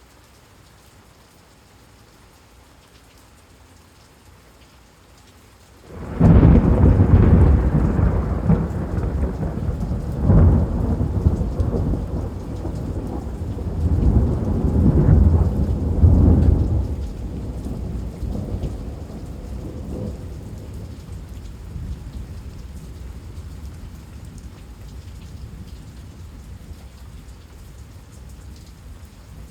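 Thunder in a rainstorm. A faint steady patter of rain, then about six seconds in a loud thunderclap breaks and rolls on in several swells for about ten seconds, slowly dying away under the continuing rain.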